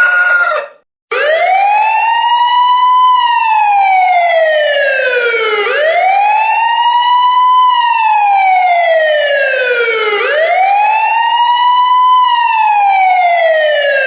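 Emergency siren wailing, starting about a second in: the pitch sweeps up quickly, then falls slowly, and the cycle repeats about every four and a half seconds, three times.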